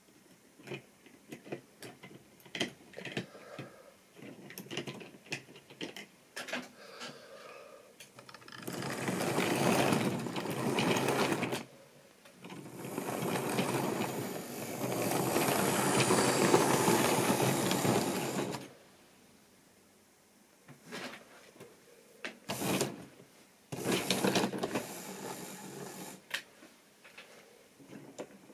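Small clicks and knocks of model railway wagons being handled on the track. Then a rake of OO-gauge plastic wagons rolls along the rails with a steady rattle for about ten seconds, with a brief break partway through, before more handling clicks and short rattles.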